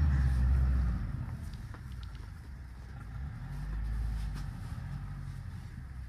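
Pickup truck engine running under load as the truck moves across snow: loudest for the first second, easing off, then rising again about four seconds in before fading.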